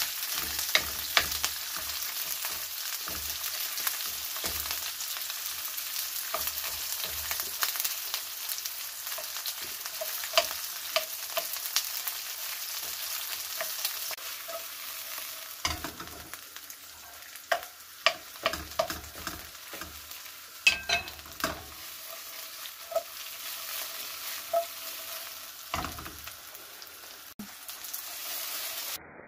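Sliced onions sizzling in hot oil in a nonstick wok, with a wooden spoon scraping and knocking against the pan as they are stirred. They are being sweated with a pinch of salt to soften rather than brown. The sizzle eases off in the second half.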